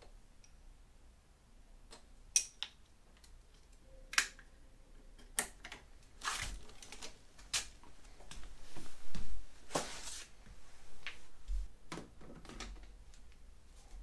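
Hands working on a motorcycle's fuse box and wiring: scattered sharp clicks and light knocks, with stretches of rustling. The rustling is loudest a little past the middle.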